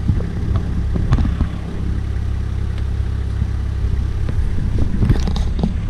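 Toyota 80 Series Land Cruiser engine idling steadily while the truck sits bogged to the bonnet in thick mud, with a few light knocks about a second in and again near the end.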